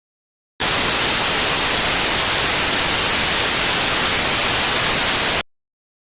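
Loud, even white-noise static hiss, starting suddenly about half a second in and cutting off abruptly about five seconds later.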